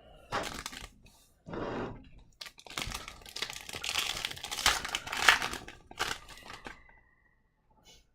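Foil wrapper of a hockey card pack being torn open and crinkled by hand, in irregular crackling bursts that are loudest in the middle and stop about a second before the end.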